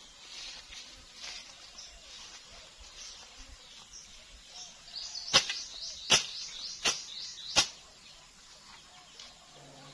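A machete slashing through tall cogon grass: four sharp cuts about three-quarters of a second apart a little past halfway, with the grass rustling around them.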